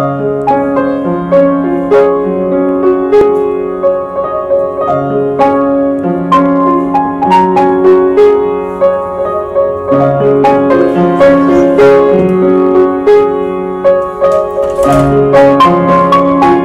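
Piano played in a slow, repeating pattern of sustained chords and melody notes, recorded through a Canon EOS 80D camera's microphone.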